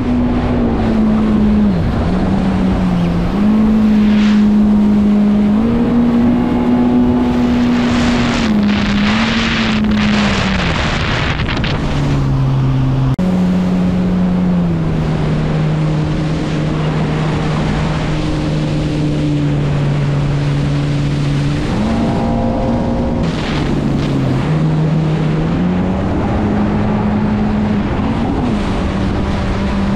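Motorboat engine running at speed, its pitch stepping up and down every few seconds as the load and throttle change, with swells of rushing wind and water noise.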